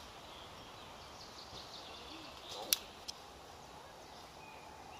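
A single sharp crack from an airsoft gun shot about two and a half seconds in, with a smaller click just after. Between them, faint bird chirps over a quiet woodland background.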